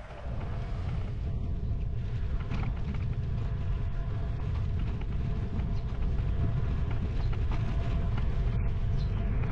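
Steady low rumble of wind on the microphone and tyre noise from a moving bicycle, with a faint steady tone running underneath.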